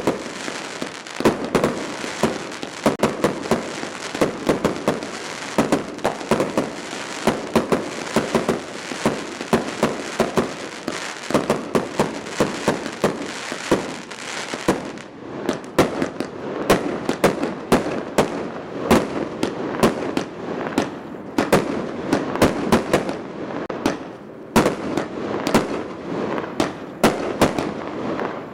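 Fireworks display: aerial shells and crackling stars going off in a dense, rapid string of bangs and crackles with no break.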